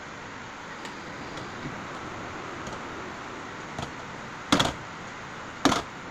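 Two sharp clicks about a second apart over steady background hiss.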